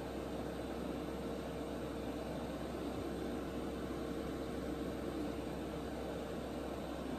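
Airbrush paint booth's exhaust fan running steadily, a constant whooshing noise with a steady hum tone.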